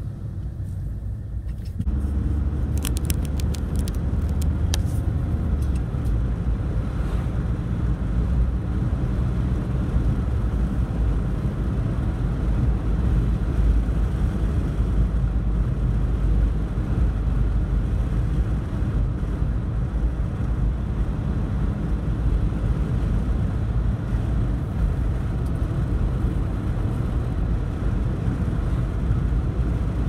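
Car engine and road rumble heard from inside the cabin of a Mercedes while driving. The noise steps up about two seconds in as the car picks up speed, then holds as a steady drone.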